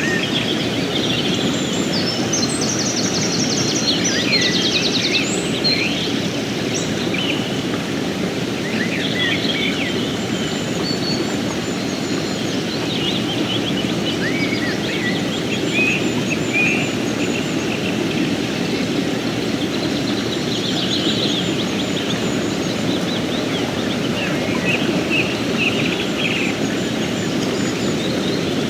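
Fast mountain river flowing steadily over rocks, a constant rush of water, with birds chirping and singing in short calls throughout.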